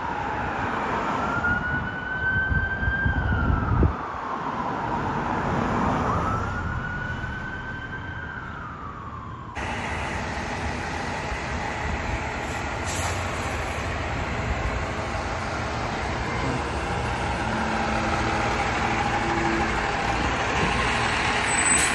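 Fire engine siren in a slow electronic wail, rising and falling about every four seconds over engine rumble and traffic. About ten seconds in it cuts to the steady running of a Pierce fire engine's diesel engine as the truck moves off.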